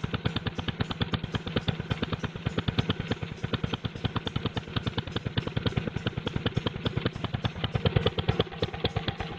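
Old engine running unevenly and sputtering: a fast train of firing pulses, about eight to ten a second, with some pulses irregularly louder than others.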